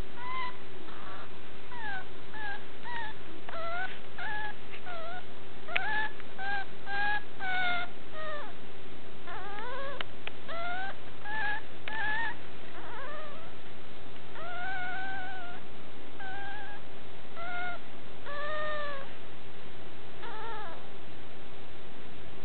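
Young puppy whining: a long run of short high-pitched cries, many rising in pitch, a few a second in the first half, then longer arched whines after the midpoint.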